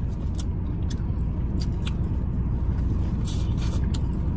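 Steady low hum inside a running car's cabin, with scattered small wet clicks of chewing and mouth smacks as corn on the cob (Mexican street corn) is eaten.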